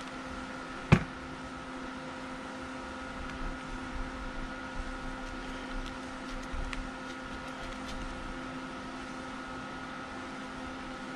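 A steady machine hum, with a few faint crackles of potting soil being pressed down by hand around a fig cutting, and one sharp click about a second in.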